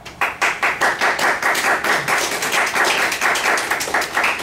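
A small group of people clapping, with quick, closely spaced claps starting suddenly just after the start.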